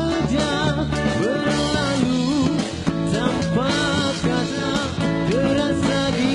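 Music: a pop ballad with full band accompaniment and a lead melody that slides up and down in pitch.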